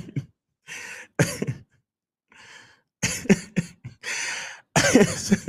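A man's short, breathy vocal bursts close to a microphone, about six of them with pauses between, coughing or breathy chuckles rather than words.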